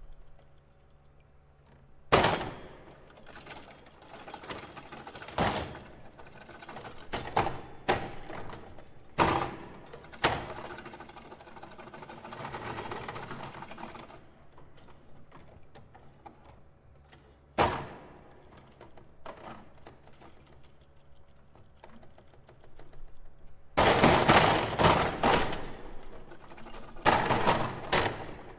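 Foosball table being played: scattered sharp knocks and clacks of the rods and player figures, a stretch of rattling, then a fast, dense run of clattering near the end.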